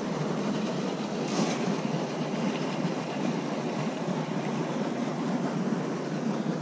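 Wind blowing across the microphone: a steady rough rumble with no clear rhythm.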